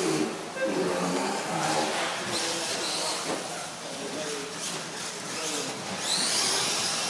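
Radio-controlled 4wd short course trucks racing: their motors whine, rising and falling as the trucks accelerate and brake, over a steady high hiss. People talk in the background.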